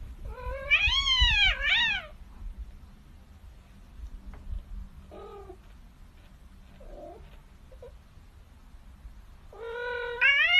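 A cat meowing: two meows that rise and fall in quick succession at the start, a few faint short calls in the middle, and a longer meow near the end that starts low and flat, then rises.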